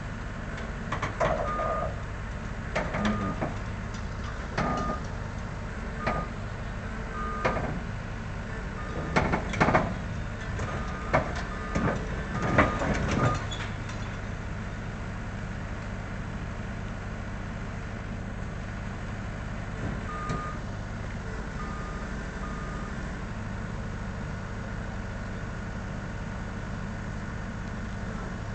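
Tracked Liebherr 32TTR tower crane creeping down a low-loader's ramp: a diesel engine runs steadily while a travel alarm gives short high beeps at intervals. Metal clanks and knocks come thick in the first half, then die away, leaving the engine hum and a few more beeps.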